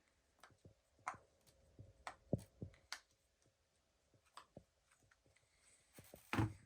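Silicone pop-it fidget toy being pressed: a string of soft, irregular pops and clicks as the bubbles are pushed through, with a louder thump near the end.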